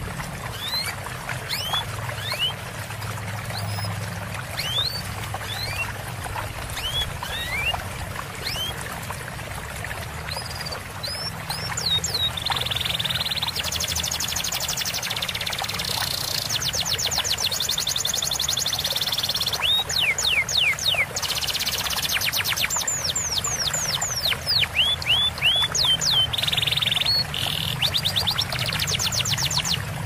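Small songbirds singing over a steady trickle of running water: scattered thin rising chirps at first, then from about halfway dense high trills and fast runs of rapidly repeated rising notes.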